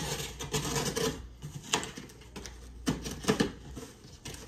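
Box cutter slicing through the packing tape on a cardboard box, a scratchy rasp for about the first second, then a few sharp crackles and snaps as the cardboard flaps are pulled open.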